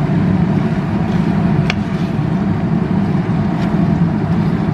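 Steady low drone of a kitchen cooker hood fan running, with a couple of light knocks of a wooden spatula against the frying pan as rice and bell pepper are stirred.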